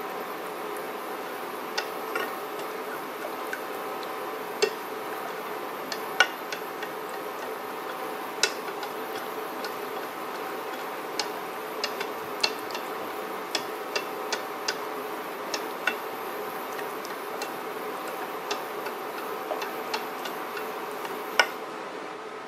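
Silicone-coated whisk stirring a thick sauce in a nonstick saucepan, ticking against the pan at irregular moments, over the steady hum and high whine of an induction cooktop. The high whine stops near the end, when the pan comes off the cooking plate.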